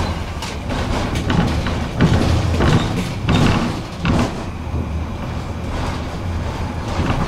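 A tram running, heard from inside the car: a steady low hum with repeated knocks and rattles from the wheels on the rails and from the car body.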